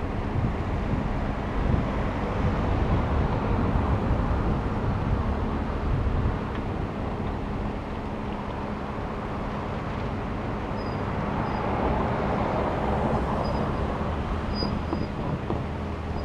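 Road traffic over a railway level crossing: a pickup truck and then a minivan drive across the tracks, their engines and tyres passing as a steady rumble that swells as each vehicle goes by.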